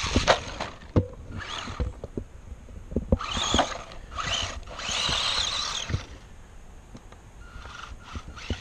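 1/18-scale ECX Torment RC short course truck's electric motor and gears whining in about four bursts of throttle, rising and falling in pitch as it climbs a dirt mound. Scattered sharp knocks in between.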